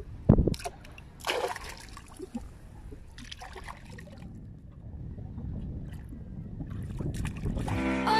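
Hands splashing and sloshing in shallow seawater while digging in the seagrass bed for peanut worms, with a few sharp splashes in the first second and a half and smaller drips and splashes after, over a steady low rumble. Music starts near the end.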